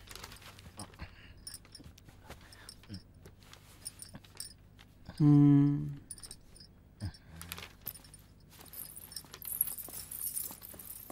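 Faint rustling and small clicks of pages and movement, with a brief low hum about five seconds in as the loudest sound. Near the end comes a light, high metallic jingling of jewellery as a woman walks in.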